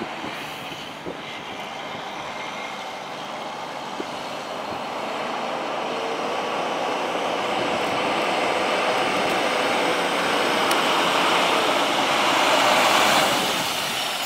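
A 2000 Volvo VN semi truck with a Cummins ISM turbo diesel driving toward and past, a rushing engine and tyre noise that grows steadily louder, peaks near the end, then falls away.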